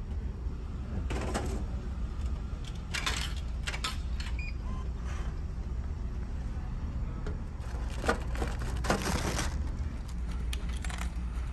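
Coins being fed into a vending machine, heard as short clicks and rattles, then a louder clatter about eight seconds in at the machine's delivery door where the bought item lands. A steady low hum runs underneath, typical of a ferry's engines.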